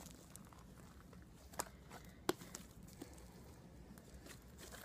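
Homemade glue-and-shaving-cream slime being stretched and squeezed in the hands: faint sticky squishing with two short sharp clicks a couple of seconds in.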